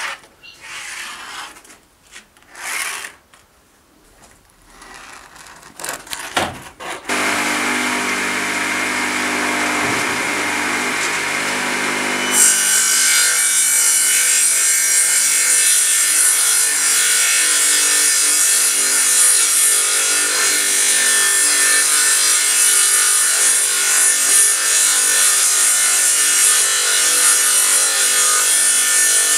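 Short handling knocks and rubs as a board is moved, then about seven seconds in a benchtop table saw motor starts and runs steadily. From about twelve seconds its spinning blade is ripping through a large board in a long, even cut.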